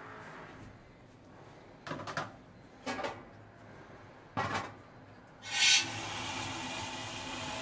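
A few hollow knocks as cookware is handled, then a sudden rush of hissing steam from a dumpling steamer that settles into a steady hiss.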